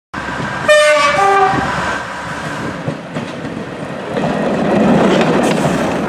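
A diesel multiple unit's two-tone horn sounds briefly about a second in, a higher note followed by a lower one. The train's running noise then carries on and swells near the end.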